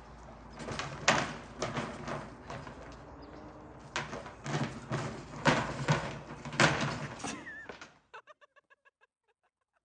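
An elephant's trunk yanking at a hanging enrichment feeder, which bangs and rattles against its overhead metal frame: a series of loud knocks and clatters that stop abruptly about eight seconds in.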